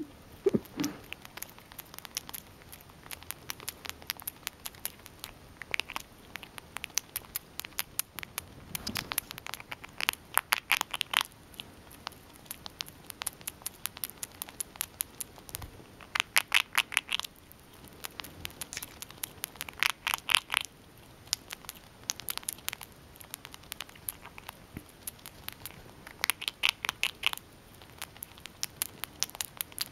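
Gray squirrel gnawing and crunching a hard, biscuit-like treat held in its paws, close up: runs of rapid, sharp crunching clicks that come every few seconds, with short pauses between.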